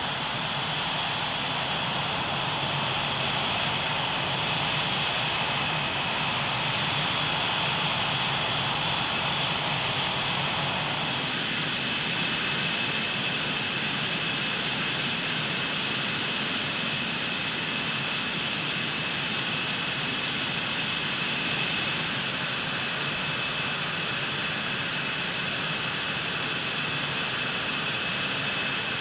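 F/A-18 Hornet's twin turbofan engines idling on the ground: a steady high whine over a low rumble. Part of the mid-range noise drops away about eleven seconds in.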